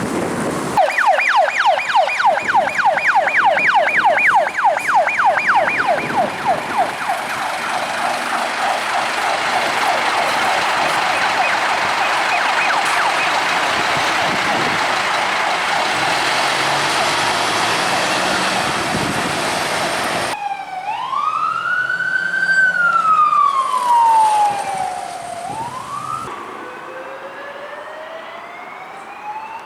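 Fire engine sirens on the move: a fast yelp, about five sweeps a second, for the first few seconds, giving way to a dense noisy wash. After an abrupt cut about two-thirds of the way in, a slower siren wails, rising and falling in pitch.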